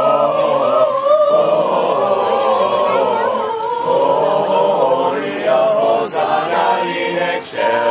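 A group of carolers singing a Christmas carol together, several voices in unison and harmony.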